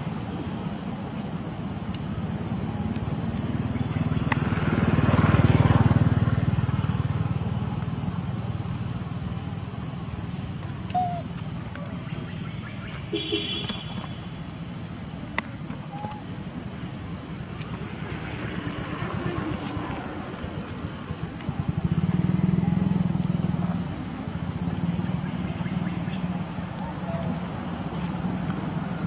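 Steady high-pitched insect chorus, with the low rumble of a passing motor vehicle swelling twice, about five seconds in and again a little over twenty seconds in.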